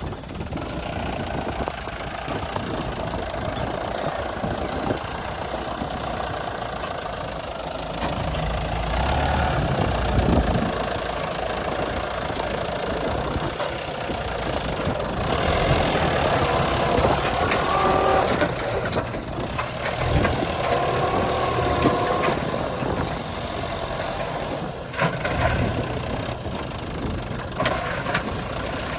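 Diesel engine of heavy farm or earthmoving machinery running continuously. Its loudness and pitch rise and fall, louder from about a third of the way in.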